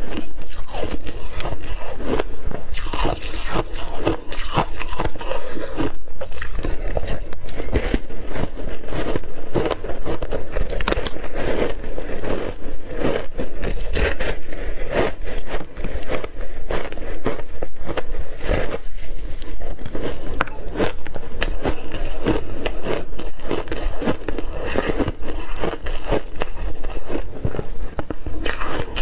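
Block ice frozen with mixed berries and coated in matcha powder being bitten and chewed close to the microphones: a dense, unbroken run of loud cracks and crunches.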